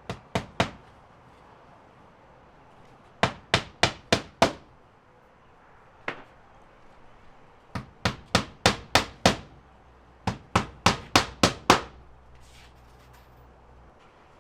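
Hand hammer driving nails through the nailing flange of a rigid mount block into the wall: runs of three to six sharp blows at about three a second, one run per nail, with a single blow between.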